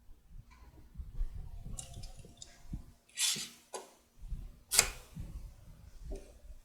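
Wooden rack parts being handled and fitted together during glue-up: scattered light knocks and bumps, a short scrape about three seconds in, and one sharp click near five seconds.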